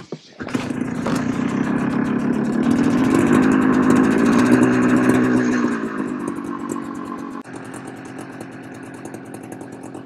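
Old snowmobile's two-stroke engine revving up, held at higher revs for a couple of seconds, then dropping back to a steady idle about seven seconds in. The sled does not drive off: its belt has slipped loose.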